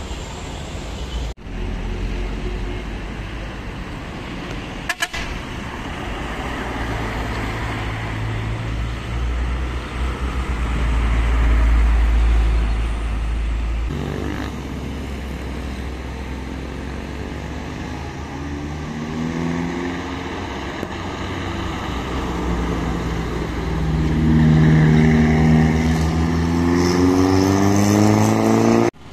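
Minibus and truck engines pulling hard at full throttle as they climb a steep mountain road past close by, heard in several short cuts. A deep rumble builds to its loudest about twelve seconds in. In the last part an engine's pitch climbs as it accelerates up the grade.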